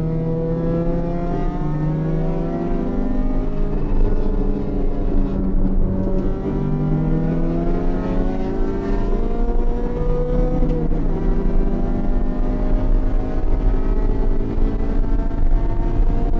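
Honda Civic race car's B18C four-cylinder engine heard from inside the cabin, revving up and dropping back sharply about four times as it works through the gears under hard acceleration, over a steady low road and wind rumble.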